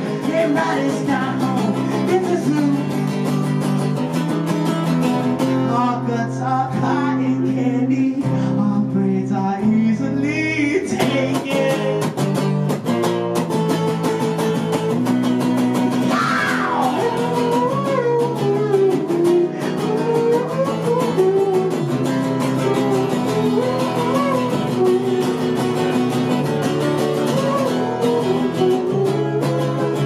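Acoustic guitar strummed in a steady pattern while a man sings over it.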